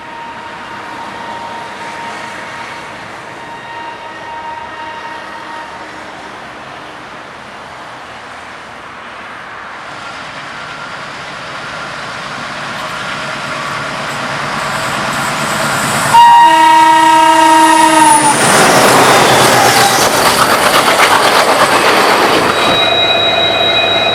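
ALCO-built Indian Railways diesel locomotives, a WDM3A and a WDM3D working together, approaching with a steadily rising rumble, then sounding the horn once for about two seconds. The train then passes close by, loud with wheels clattering over the rail joints, and steady high tones come in near the end.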